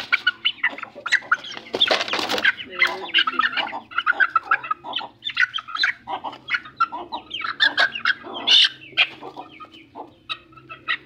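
Aseel chickens clucking and squawking in quick, repeated short calls while being held and handled, with a brief burst of noise about two seconds in.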